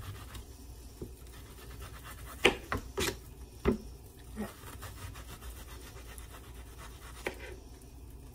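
A kitchen knife trimming and peeling an onion held in the hand: soft rubbing and scraping of the skin, with a few sharp knife clicks between about two and a half and four seconds in and one more near the end.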